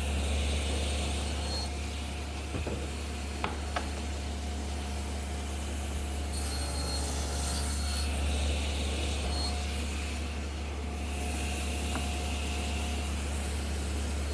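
Table saw running with a steady low hum while wooden stock is fed through the blade for shallow 3/8-inch tenon face cuts, with a hiss of blade cutting wood three times. There are two sharp clicks about three and a half seconds in.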